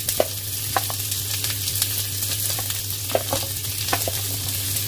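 Chopped onion and minced garlic sizzling in hot rice oil in a wok, a steady hiss, with a few light knocks of a wooden spoon on a steel bowl as the onion is scraped in.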